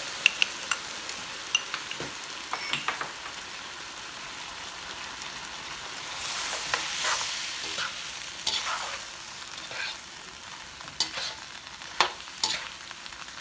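Onions and bell peppers sizzling in a hot wok while a metal slotted spoon stirs them, with frequent clicks and scrapes of the spoon against the pan. The sizzle swells for a few seconds about halfway through.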